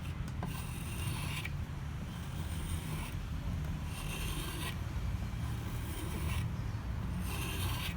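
Hand tool scraping a wooden hammer handle during rough shaping: about five scraping strokes, each lasting around a second, over a steady low rumble.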